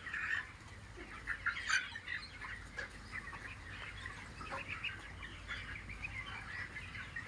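A large flock of young chickens calling: many short, overlapping chirps and clucks.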